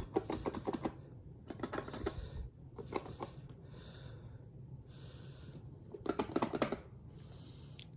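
Quick clusters of sharp clicks, like elevator pushbuttons being pressed one after another on a sample board, coming in several rapid bursts with soft handling noise between them.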